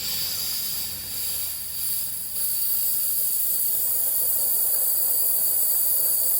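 Compressed air hissing steadily out of a Metabo HPT cordless compressor's valve, which pops out by itself as the tank fills and lets the tank lose air. The hiss grows a little louder about two seconds in.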